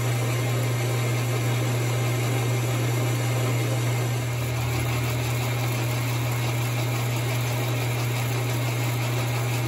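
Metal lathe running under power, its carbide tool taking a turning cut along a 1018 steel shaft: a steady low drone from the machine's drive with cutting noise on top.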